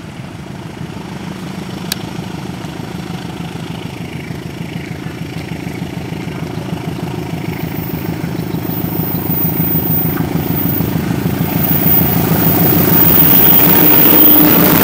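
Indonesian CC203-class diesel-electric locomotive approaching under power, its diesel engine running with a steady pulsing beat that grows steadily louder as it nears. In the last few seconds the wheels rolling on the rails add a rising rushing noise as the locomotive passes close by.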